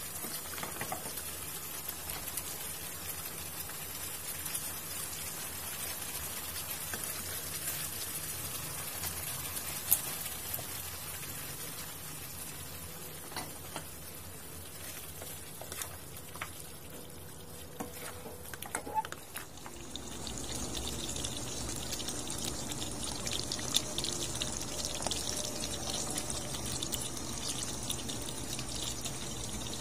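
Thick soy-based sauce with pork ribs simmering and bubbling in a wok, with a few sharp clicks. About two-thirds of the way through, the bubbling turns louder and denser, with more crackle.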